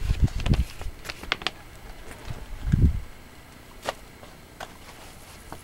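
Scattered clicks and scuffs of footsteps on stony ground, with a few low thumps from the camera being handled; the loudest thump comes about three seconds in.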